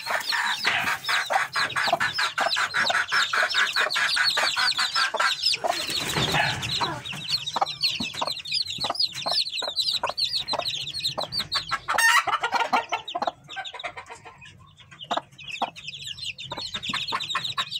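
Gamefowl chicks about a week old peeping constantly in rapid, short falling chirps, with the mother hen clucking among them. A sharp knock comes about twelve seconds in, and the peeping thins out briefly near the end.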